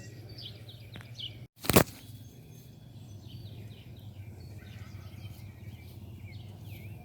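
Birds chirping in short, quick calls over a steady low hum. About a second and a half in, the sound drops out for a moment and a single loud thump follows.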